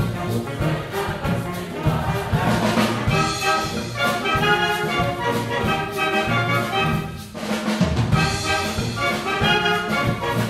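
Wind band playing a Cuban-style piece: brass with trumpets and trombones holds full chords over a steady percussion beat, with a brief break about seven seconds in before the band comes back in.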